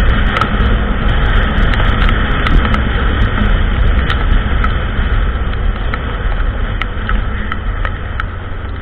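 ATV (quad) engine running steadily while riding a trail, with scattered sharp clicks throughout; it grows gradually quieter toward the end.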